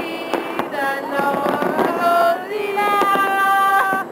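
Fireworks popping and crackling, mixed with music that has long held pitched notes.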